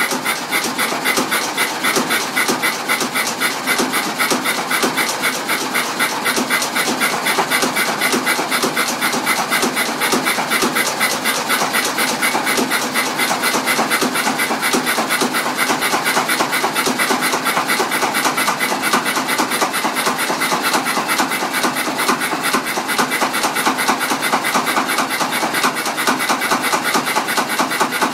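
Engine running on petrol with a regular exhaust beat. It misfires at random at first, then settles to firing on every firing stroke about 16 seconds in.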